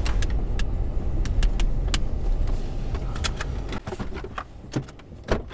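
Pickup truck driving, heard from inside the cab: a low road rumble that fades away about three and a half seconds in as the truck slows. Scattered light clicks and rattles run through it.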